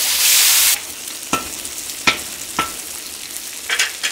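Meat frying in oil in a kazan, sizzling loudly for the first moment and then more quietly while it is turned over with a utensil. Several sharp scrapes and knocks of the utensil against the kazan come through the sizzle.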